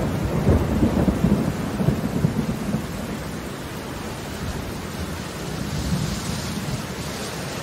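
A low roll of thunder over steady rain. The rumble is strongest in the first couple of seconds, then dies away and leaves the even hiss of the rain.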